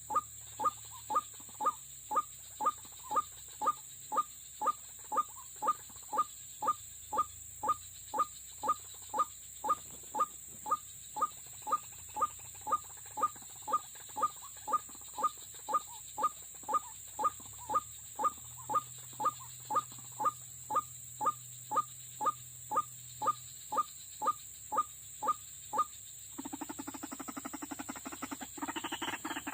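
White-breasted waterhen calling: a short note repeated monotonously, about three every two seconds. Near the end it changes to a denser, harsher calling.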